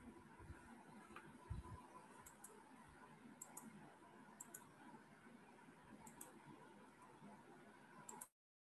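Near silence with faint hiss, broken by soft clicks in close pairs about five times at irregular intervals; the sound cuts off to dead silence near the end.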